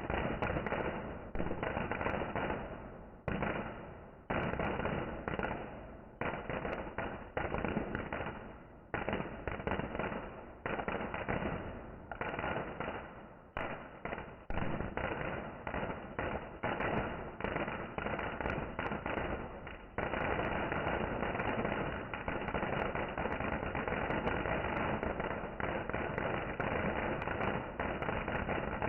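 Fireworks going off: a rapid series of bangs, each dying away, then for the last third an unbroken barrage of bangs and crackling.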